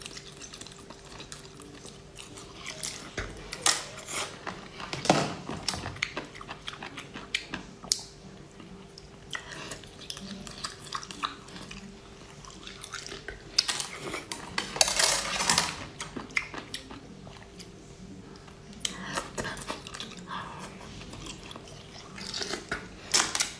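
Small shelled snails being sucked and bitten off metal skewers: wet slurping and chewing in irregular bursts, with shells clicking against the skewers.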